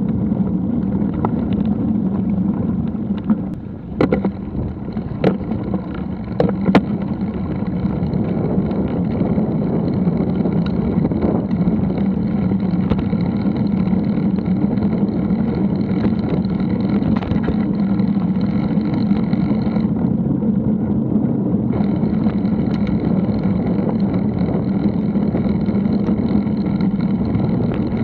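Bicycle riding over a muddy dirt path, picked up by a mounted action camera: a steady rumble of tyres and frame vibration, with a few sharp knocks between about four and seven seconds in.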